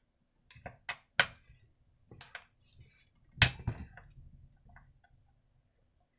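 Screwdriver and hands working the screws of a chainsaw's plastic recoil starter cover: several separate sharp clicks and knocks, the loudest about three and a half seconds in.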